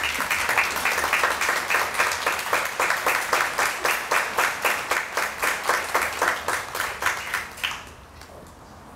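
Audience applauding, the sharp claps coming about five a second and dying away near the end.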